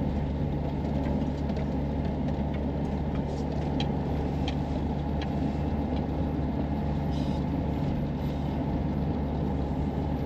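Renault Master camper van's diesel engine running steadily under way, with road and tyre noise, heard from inside the cab.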